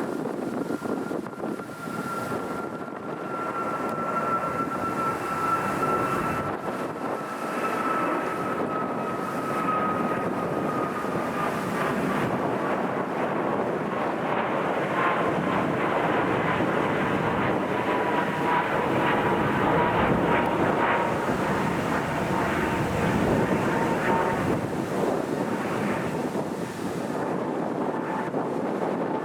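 Airliner flying past, a steady engine rush with a whine that slowly falls in pitch. It grows loudest about two-thirds of the way through.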